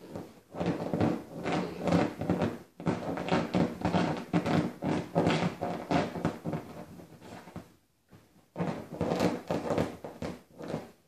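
Eight-week-old Siberian husky puppy play-growling in short bursts while digging and pawing at a cushion dog bed, with scratching and thumps on the cushion. It stops briefly about two-thirds of the way through, then starts again.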